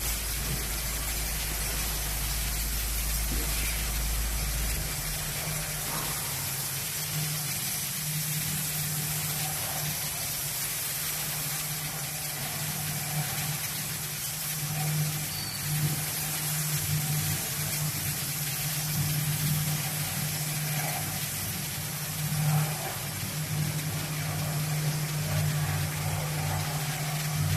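Servo-driven automatic chain link fence weaving machine running: a steady low machine hum with an even hiss above it. A deeper rumble underneath stops about five seconds in.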